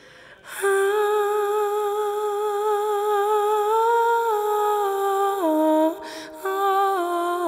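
A high-pitched voice humming a slow, wordless melody in long held notes, with a short break for breath about six seconds in.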